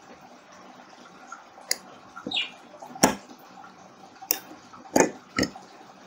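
Fiber-optic cleaver being worked to cleave a bared optical fiber: about five sharp clicks and snaps, the loudest about three seconds in, with a short scrape between the first two, over a steady faint hiss.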